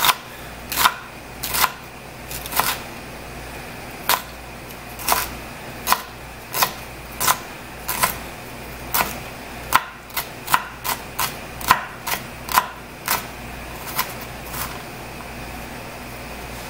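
Knife chopping celery on a plastic cutting board: short knocks of the blade on the board, about one to two a second, stopping near the end.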